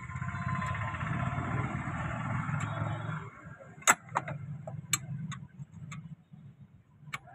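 A vehicle engine runs loud and then fades away over the first three seconds. After that come a handful of sharp, irregular metallic clicks as a spanner and rod are worked on a bolt at a scooter's exhaust mount.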